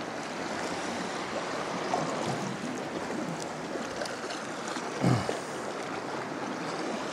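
Steady wash of water splashing and lapping around a sea kayak as it is paddled over calm sea, with a brief louder low sound about five seconds in.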